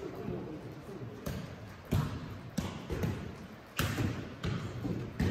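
A futsal ball being kicked back and forth on indoor artificial turf: a series of sharp thuds with a short echo from the hall, the loudest about four seconds in.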